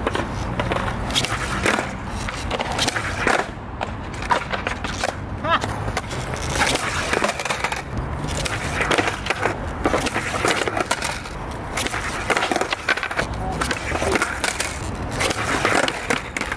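Skateboard on concrete: urethane wheels rolling with a low rumble, broken by repeated sharp tail pops and the board clacking and slapping down on the concrete during repeated laser flip (360 heelflip) attempts.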